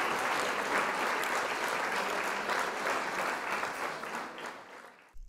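An audience applauding, many hands clapping at once, fading out near the end.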